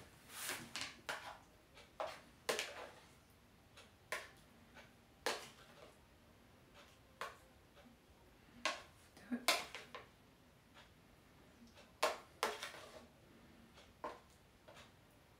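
A metal spoon tapping and scraping against a plastic plate in irregular light clicks as a croquette is turned in beaten egg.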